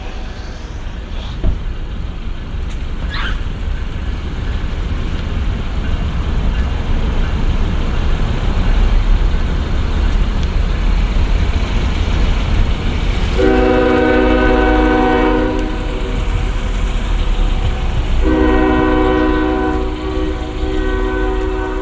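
Norfolk Southern GE ES40DC diesel-electric locomotive, its V12 diesel engine making a heavy low rumble that grows louder over the first half. Its air horn sounds a blast of about two seconds just past the middle, then sounds again from about three seconds later through the end.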